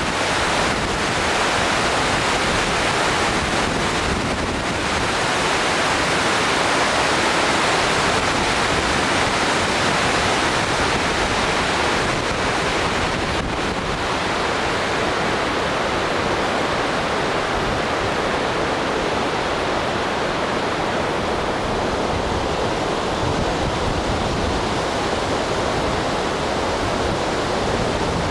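Steady loud rushing noise with no speech, its upper part thinning slightly in the last third.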